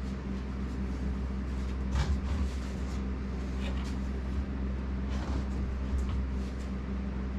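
Steady low hum from a running shop heater, with a few brief rustles and scrapes of carpet being pressed down onto contact adhesive.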